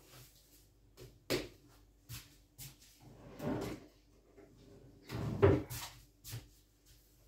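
Kitchen handling noises while working a batch of dough: a few light knocks, then two longer thudding scrapes, the loudest about five and a half seconds in.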